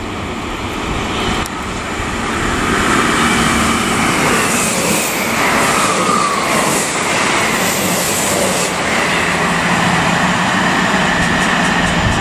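South Western Railway Class 158/159 diesel multiple unit passing through the station: diesel engines and wheels running on the rails. The sound builds over the first couple of seconds and then holds steady as the coaches go by, with a whine falling in pitch about halfway through.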